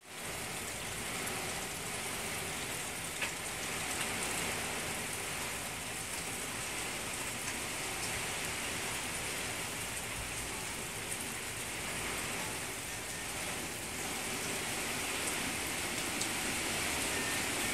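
Steady rain falling: an even hiss of rain on lawn and water, with a few single drops ticking now and then.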